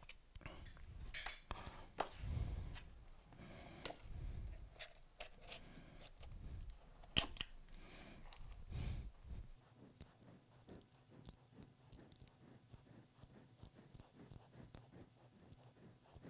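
Handling noises as a shrink-wrapped battery pack and its wires are worked into a plastic battery case: rustling, light knocks and clicks, with one sharp click about seven seconds in. After about nine and a half seconds it turns quieter, leaving faint ticks over a low hum.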